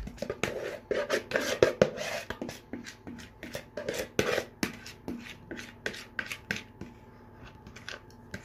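A utensil scraping and knocking against the mixing bowl in quick, irregular strokes as the last of the runny cake batter is scraped out onto the baking tray, dying away near the end.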